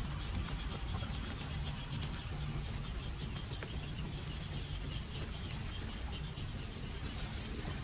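Rain falling on a flooded street and its puddles, with scattered drops ticking on the water, over a steady low rumble.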